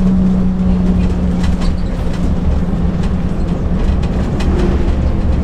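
Mercedes-Benz OH 1526 coach heard from inside the passenger cabin on the move: low engine and road rumble with occasional light rattles. A steady engine hum fades about halfway through.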